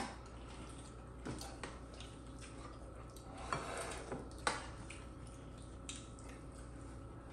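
Scattered light clinks and taps of kitchen utensils against cookware, a few separate strikes over a steady low hum.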